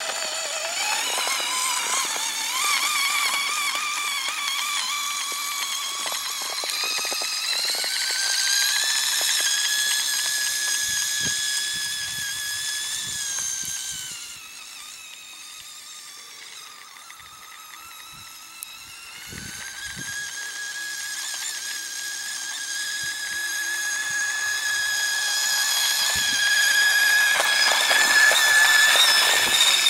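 Radio-controlled snowmobile built from Traxxas parts, its motor and drivetrain whining at a high pitch. The pitch rises over the first several seconds and then holds steady. The whine fades in the middle and grows louder again near the end.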